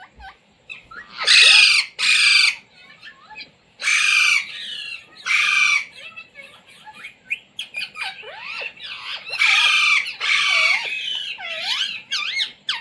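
Indian ringneck parakeet squawking: a string of about eight harsh, screechy calls, with short whistled chirps that swoop up and down between them in the second half.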